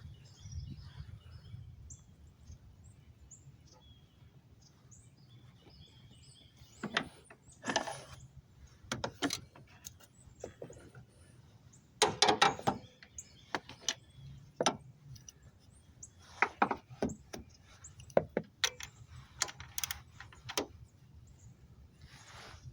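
Scattered metallic clanks and knocks of hand tools during work on the car, the loudest a quick cluster about twelve seconds in, over a low steady hum. Birds chirp faintly in the background.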